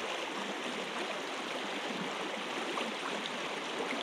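Water running over a shallow river riffle: a steady, even rushing.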